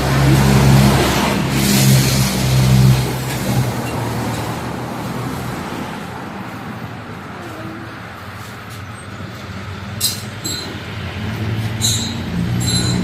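An engine running at a steady pitch, loud at first, fading away through the middle, then growing louder again near the end. A few sharp clicks sound near the end.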